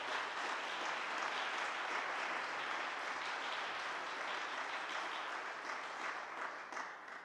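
Audience applause welcoming the performers, steady clapping from many hands that fades away near the end.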